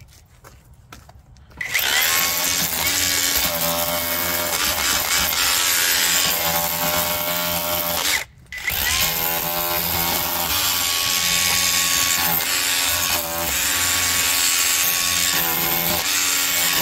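DCK KRH20V-26 brushless SDS rotary hammer chiselling into a block of concrete. It starts about a second and a half in and runs steadily, stops briefly about eight seconds in, then starts again and runs on.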